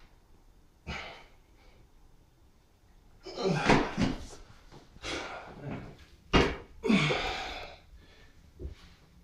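A person exhaling hard and strained with exercise effort, several forceful breaths with a falling voice in them over the middle of the stretch, plus a short knock about a second in.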